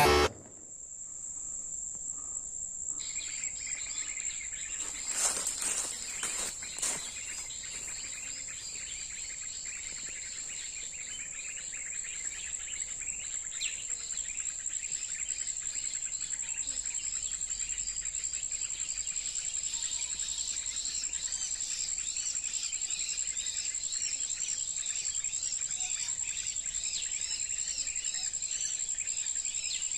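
A busy chorus of many small birds chirping rapidly over a steady, high insect drone; the chirping starts about three seconds in and grows denser about halfway through. A few sharp knocks come around five to seven seconds in.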